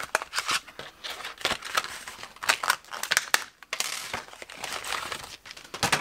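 Clear plastic die packaging crinkling and rustling in the hands as thin metal cutting dies are taken out of it, with irregular sharp clicks; the sharpest click comes near the end.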